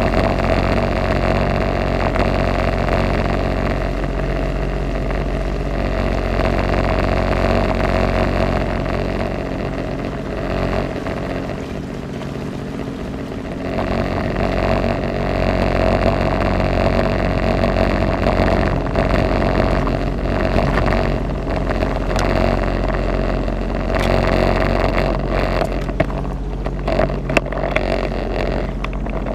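Jet ski engine running under way with a steady drone. It eases off for a few seconds about ten seconds in, then picks up again.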